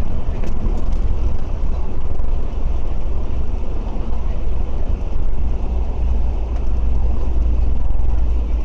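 Steady low rumble of engine and road noise inside a moving bus.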